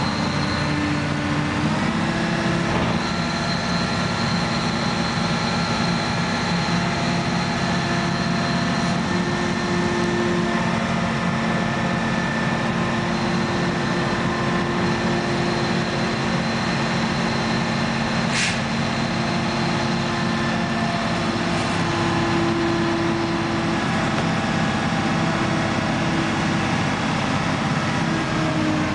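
Truck-mounted crane's diesel engine running steadily, its speed shifting slightly now and then as the crane works.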